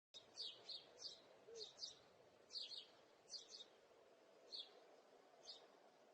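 A small bird chirping faintly: short high chirps, often in quick pairs, about one a second over a steady low hiss, cutting in abruptly from silence at the start.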